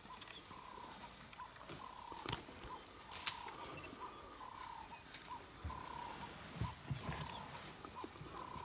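Elephants feeding in dry bush: sharp snaps of twigs and branches, the loudest about three seconds in, and a few low thumps later on, over a faint chirp repeated about twice a second.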